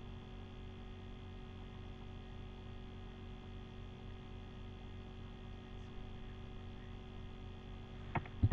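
Quiet room tone: a low, steady electrical hum with faint background noise, and a couple of short clicks near the end.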